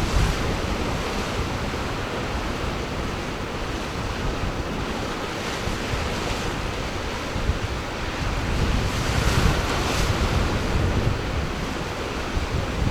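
Ocean surf washing in continuously, with wind buffeting the microphone; the surf swells louder about nine seconds in.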